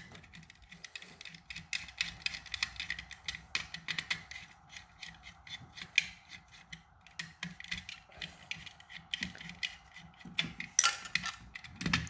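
Insulated screwdriver turning out the terminal screws of a power outlet: a continuous run of small, quick metallic clicks and scrapes, a little louder near the end.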